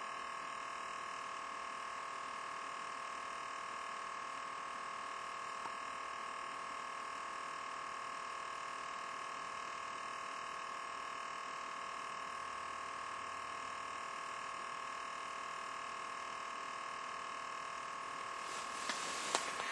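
Steady electrical whine and hiss, a cluster of constant high-pitched tones that never changes, with a faint rustle near the end.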